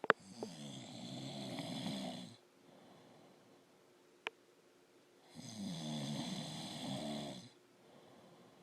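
A man snoring in his sleep: two long snores about two seconds each, the second starting about five seconds in, with quieter breaths between. A sharp click sounds at the very start and a fainter one in the pause.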